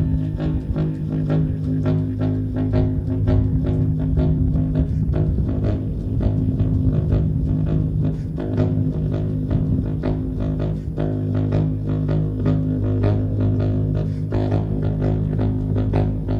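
Baritone saxophone holding a low, droning note with shifting overtones, over busy, irregular clicking percussion.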